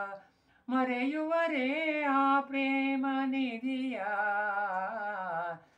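A man singing a Kannada film song unaccompanied, holding long, slightly wavering notes without clear words, with a short break for breath about half a second in.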